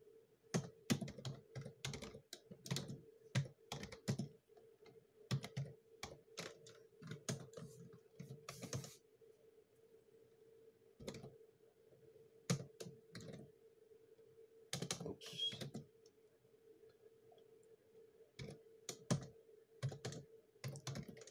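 Typing on a computer keyboard: irregular runs of key clicks broken by short pauses, over a faint steady hum.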